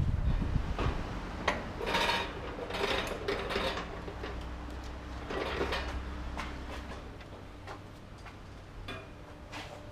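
Scattered metallic clinks, knocks and short scraping bursts of tools and heavy parts being handled during tractor wheel work, over a faint steady low hum.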